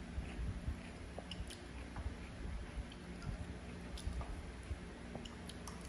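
People chewing food with their mouths close to the microphone, with scattered light clicks of a spoon and chopsticks against porcelain bowls.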